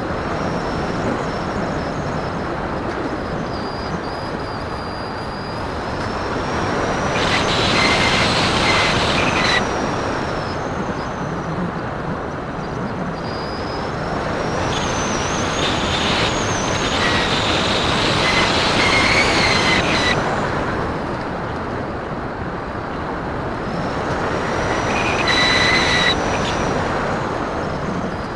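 Steady rush of air over a Phoenix 2000 RC motor glider in flight, with its electric motor and propeller whining louder three times as the throttle is opened: about seven seconds in, for several seconds from about fifteen seconds, and briefly near the end.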